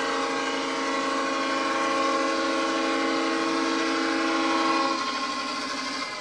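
ESU sound decoder in a G-scale AristoCraft Dash-9 model diesel locomotive sounding a multi-note air horn in one long blast of about five seconds, the upper notes cutting off a second before the lowest.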